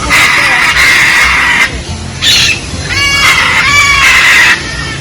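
Birds calling loudly with a series of harsh screeches. One long screech opens, shorter ones follow, and near the middle come several quicker pitched squawks.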